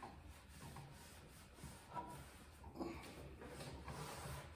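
Faint rubbing of a gloved hand wiping oil across a hot griddle top with a wad of paper towel, in uneven strokes, while seasoning the new griddle.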